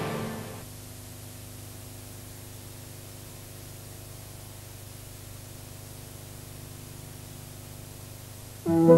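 Background music fades out in the first half-second, leaving a steady hiss of recording noise with a faint hum underneath; music starts again suddenly near the end.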